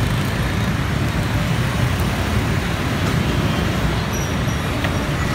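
Steady roadside traffic: a stream of motorbikes and cars going past with a constant low rumble, joined late on by a city bus passing close by as it draws up to the stop.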